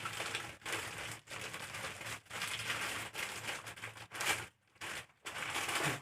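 Packaging crinkling and rustling in bursts, with short pauses, as plush toys are unwrapped by hand.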